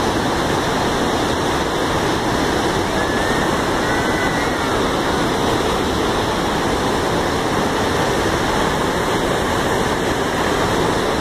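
Floodwater gushing through the open spillway gates of a dam, a loud, steady rush of falling water.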